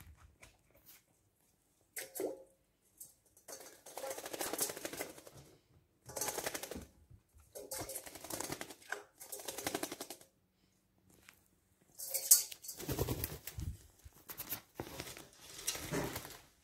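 A magpie bathing in a metal dog bowl, beating its wings in the water in several bursts of rapid fluttering splashes, each about a second or two long with short pauses between.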